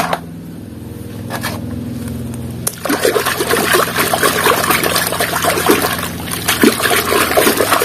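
A hand swishing and scrubbing a small toy vehicle in a basin of muddy water. The splashing and sloshing starts about three seconds in and goes on continuously, over a low steady hum.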